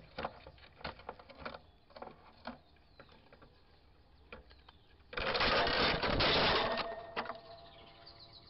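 Hyacinth macaw handling a trail camera at close range: irregular clicks and knocks on the camera, then about two seconds of loud scraping noise against the microphone about five seconds in.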